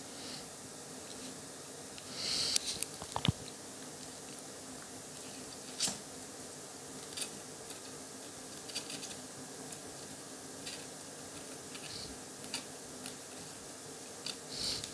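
Quiet room with a steady faint hum, broken by scattered small clicks, taps and brief rustles of hands handling thin wires and a soldering iron while joining the charger cable's wires. The busiest handling noises come about two to three seconds in.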